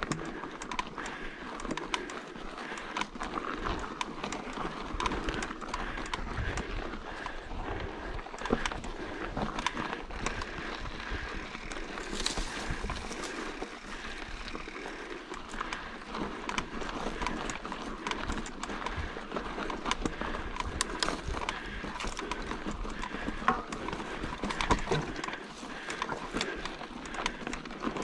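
Mountain bike descending a rough dirt trail: tyres running over dirt and rock, with frequent irregular knocks and rattles from the bike over the bumps and a low uneven rumble.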